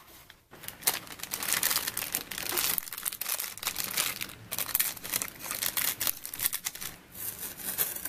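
Crinkling plastic wrapping being pulled and torn off a roll of tape, in loud, irregular crackles; a strip of tape is pulled from the roll near the end.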